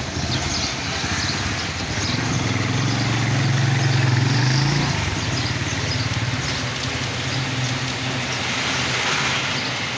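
Street traffic with a motor vehicle's engine running close by. It grows loudest about three to five seconds in, then eases back to a steady traffic hum.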